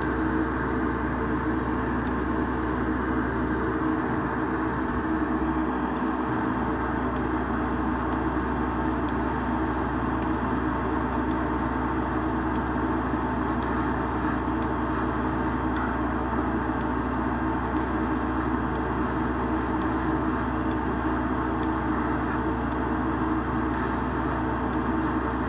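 Steady motor hum with rushing air from an airbrush painting setup, the spray booth's exhaust fan and the airbrush compressor running.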